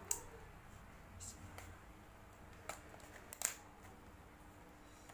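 A handful of short, sharp clicks and snips, spread a second or so apart, as scissors cut at a small cardboard watch box and the box is handled.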